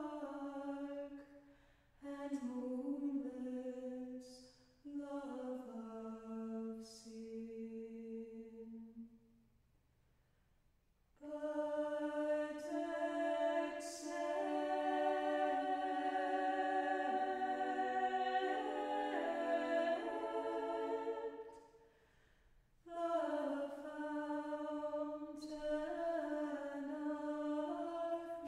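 Church choir singing an Orthodox hymn a cappella, set to a Bulgarian folk melody: held chords in phrases broken by pauses. The longest pause comes about ten seconds in, followed by a long, full phrase.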